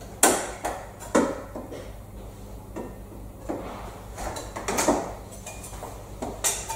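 A series of irregular sharp clicks and knocks from glazing beads being prised out of a door sash around its glass unit. The loudest knocks come just after the start, about five seconds in, and near the end.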